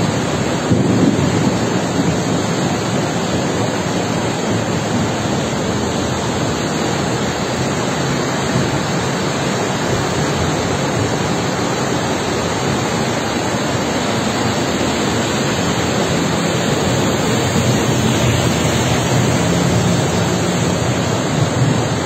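Flash-flooded river, fast muddy floodwater rushing past in a loud, steady noise.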